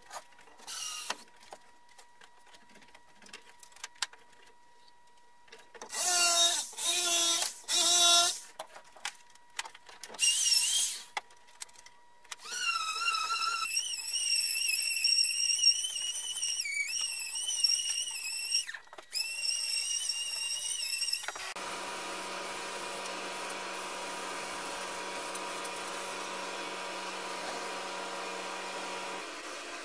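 Handheld power tool cutting through MDF in short loud bursts, then a longer stretch of wavering high-pitched whine as it runs on. After an abrupt change a steady mechanical hum continues.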